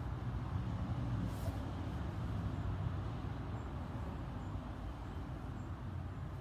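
Steady low background rumble with a faint hum, without distinct events.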